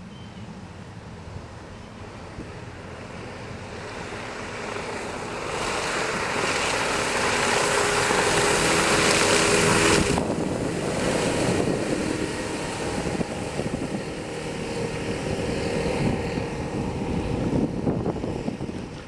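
A Bayliner Element 16 deck boat under way on the water: its outboard motor runs under the rush of water along the hull and heavy wind noise on the microphone. The noise builds over the first several seconds, then drops sharply about halfway through.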